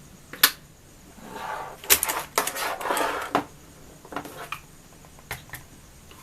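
Sharp plastic clicks and knocks with a stretch of rustling in the middle, as a mechanical keyboard and its packaging are handled.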